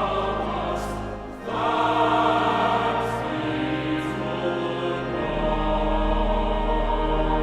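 Music with sustained choral chords, breaking off briefly about a second and a half in and resuming, with a steady low drone entering near the end.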